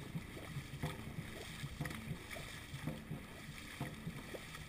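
Dragon boat crew paddling in unison: the paddles strike the water together about once a second, each stroke a short splash over a steady rush of water and wind.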